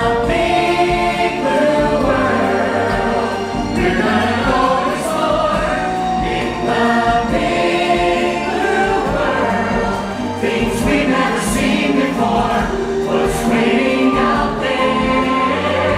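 Stage musical number: an ensemble of voices singing together in chorus over continuous instrumental music.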